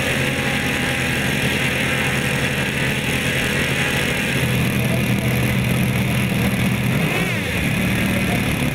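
Glow-plug piston engines of a 1:10 scale RC Lockheed Super Constellation model running at idle on the ground, a steady engine note that grows a little fuller about four seconds in.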